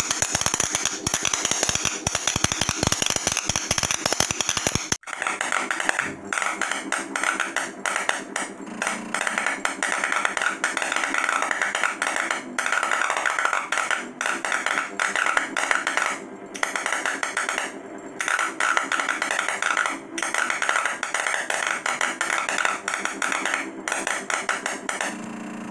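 Spark erosion from a homemade CNC EDM: a copper electrode arcing against an aluminium plate under water, a dense, rapid crackle with a high hiss. About five seconds in it cuts to a steadier hum with a few brief breaks.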